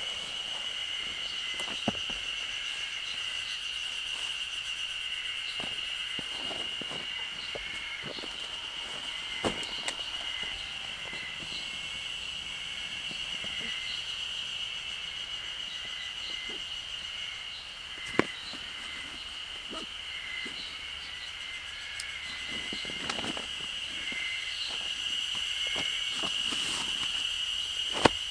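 Forest ambience with a steady, high insect drone and small chirps throughout, broken by a few sharp knocks or clicks, the loudest about two-thirds of the way through and near the end.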